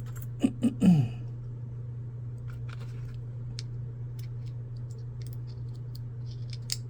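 Small scattered clicks and taps of metal lock-pick parts being handled as a pick wire is fitted into its handle, over a steady low hum. A brief falling vocal sound comes about a second in.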